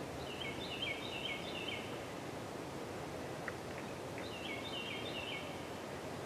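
A bird calls twice, each time a quick series of short falling notes lasting a second or so, the second series about four seconds in, over the steady background noise of the woods.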